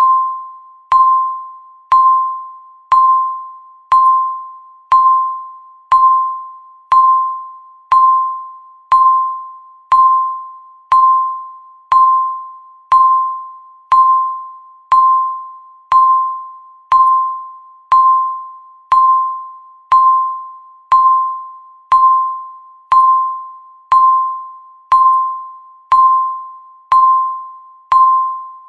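Countdown timer's electronic tick sound: a single pitched ping struck once every second, each one fading away quickly before the next, evenly and steadily.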